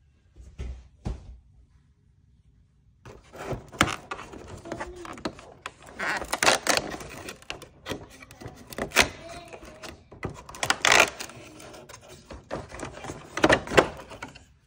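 Cardboard packaging being handled: a calendar door pulled open with crackling, rustling and tapping, and several sharp clicks as a small tool is taken out. A few light knocks, then a short pause, come before the handling starts.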